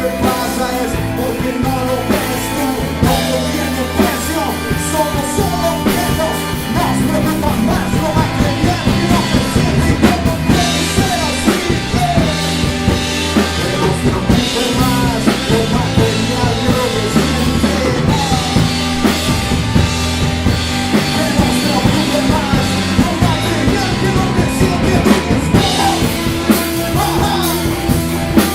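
Live rock band playing an instrumental passage, with electric guitar lines over bass and a driving drum kit.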